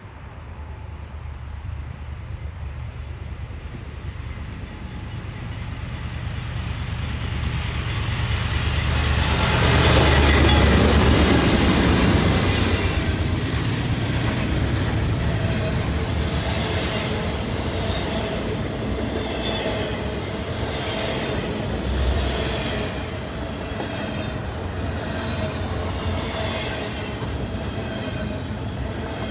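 CN freight train passing close by: the diesel locomotives' engine rumble builds as they approach and peaks about ten seconds in. Then double-stack intermodal container cars roll past with a steady, rhythmic clatter of wheels on the rails.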